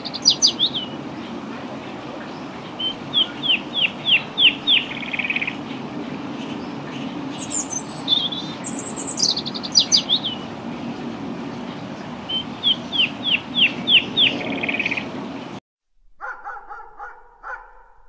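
A songbird repeating the same song phrase about every five seconds: high thin notes followed by a quick run of down-slurred whistled notes, over steady background noise. After a sudden cut near the end, a small dog barks a few times.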